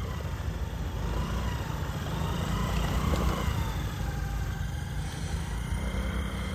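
Small motor scooter engine running as the scooter rides across grass, its pitch rising and falling slightly about halfway through, over a steady low rumble.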